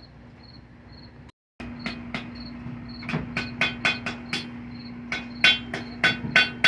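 Blacksmith's hand hammer striking hot iron on an anvil: about a dozen ringing blows in quick irregular runs, starting a couple of seconds in after a brief cut in the sound. A faint high chirp repeats about twice a second.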